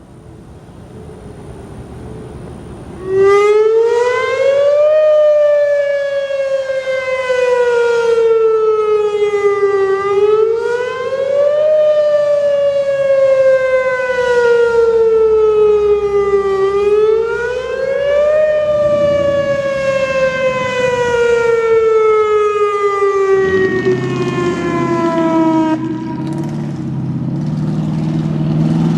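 Whelen WPS 2810 electronic outdoor warning siren sounding its test tone: the pitch climbs over about two seconds, then slowly falls over about five, three times over. It jumps suddenly louder about three seconds in.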